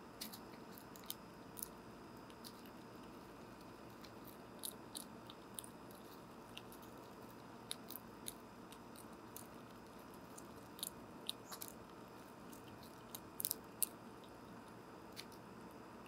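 A squirrel cracking and chewing seed from a bird feeder, picked up close by a microphone on the feeder: irregular sharp crunches and clicks, with a cluster of louder ones near the end.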